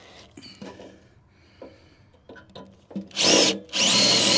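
Cordless drill drilling out a rivet in a steel step frame: a few light handling taps, a short burst of the drill about three seconds in, then the drill running steadily at speed near the end.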